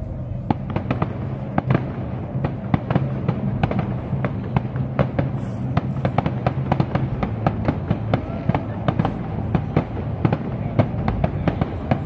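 Fireworks crackling and popping: dozens of quick, irregular sharp cracks, close together throughout.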